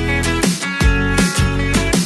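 Background music with a strummed guitar over a repeating bass line.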